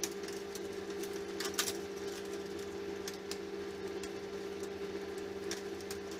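Steady hum with scattered light clicks and ticks of metal wire and clips being handled, a cluster of them about a second and a half in.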